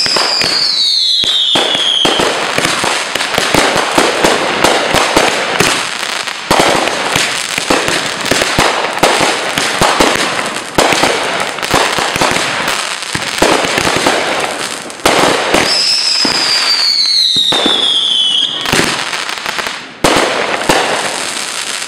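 Fireworks going off at close range: dense crackling and popping throughout, with two falling whistles, one at the start and another about two-thirds of the way through.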